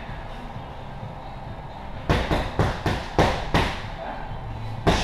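Strikes landing on Muay Thai pads: a quick combination of about six sharp hits a couple of seconds in, then a single hit near the end.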